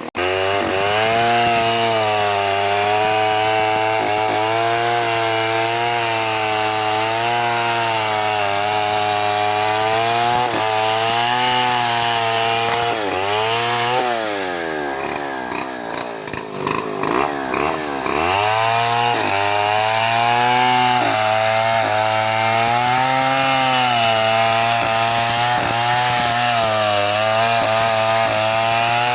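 Homemade chainsaw ripping mango wood lengthwise, its engine running hard under load with the pitch wavering as the chain cuts. About halfway through, the engine pitch drops well down and then climbs back as the cut continues.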